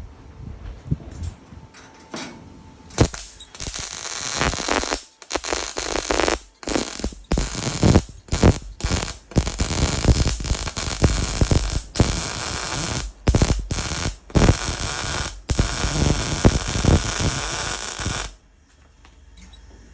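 Electric arc welding on a car body's partition panel: a string of crackling welding bursts, each a second or two long with short pauses between, starting about 3 seconds in and stopping near the end.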